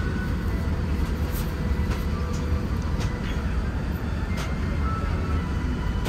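Steady low rumble and hiss of an airliner cabin in flight, with a few faint light clicks as small toiletry tubes are handled in a cardboard box.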